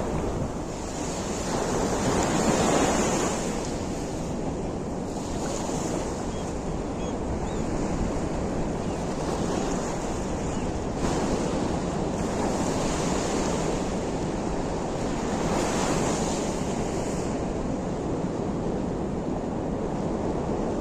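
Sea surf washing in on a swelling sea, with wind buffeting the microphone; the wash surges louder a few times.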